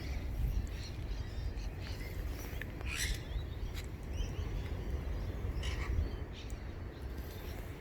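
Wild parrots, galah cockatoos and rosellas, giving short scattered chirps, the clearest about three seconds and six seconds in, over a steady low rumble.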